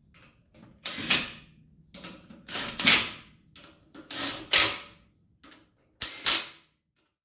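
Workshop clatter from tools and parts being handled: a series of about five or six short rattling scrapes and knocks, roughly a second apart, stopping shortly before the end.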